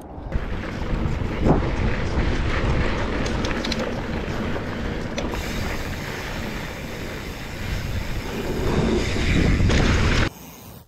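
A mountain bike descending a steep, loose dirt trail: tyres rolling and skidding over dirt with the bike's chain and parts rattling and clicking, and wind on the camera microphone. It cuts off abruptly near the end.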